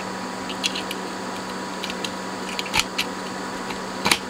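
Small clicks and knocks of a circuit board being handled and pushed into place in an electronics module, with two sharper knocks near three and four seconds in, over a steady background hum.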